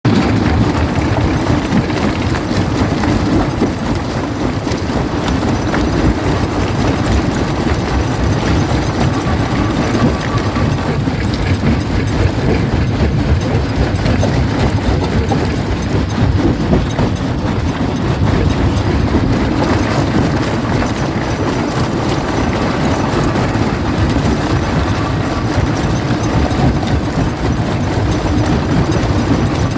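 Quarry primary jaw crusher crushing rock: a steady heavy rumble with constant cracking and knocking of stone.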